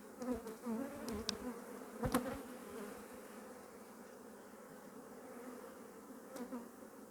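Honeybees buzzing in a steady hum over an open hive. A few sharp knocks come in the first couple of seconds, the loudest just after two seconds, and two more come near the end.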